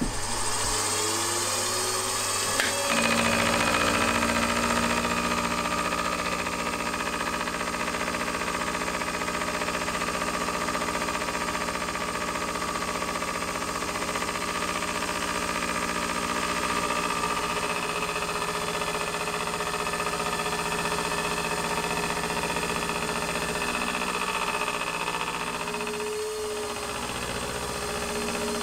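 Bench milling machine cutting the edge of an aluminium plate. The spindle whine rises as it comes up to speed, then the cutter bites in about three seconds in and the cut runs on as a steady whine.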